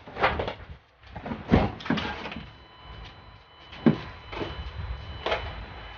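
Irregular knocks and clunks, about five of them, from hands-on work around a car's bodywork as a replacement front wing is fitted. A faint steady high tone comes in about two seconds in.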